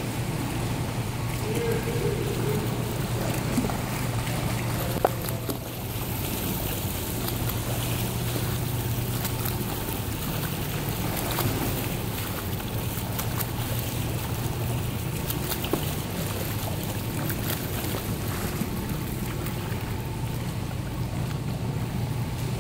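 Indoor swimming pool ambience: swimmers' splashing and churning water, with a steady low hum underneath and a few faint clicks.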